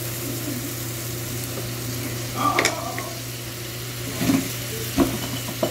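Shrimp simmering in a buttery pineapple-juice sauce in a frying pan, with a steady sizzle. A wooden spatula stirs, then gives a few short knocks and clatters about halfway through and near the end.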